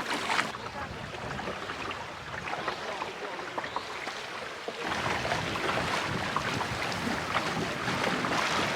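Water splashing and lapping along the hull of a small clinker-built wooden sailing dinghy under way, with wind noise; it grows louder about halfway through.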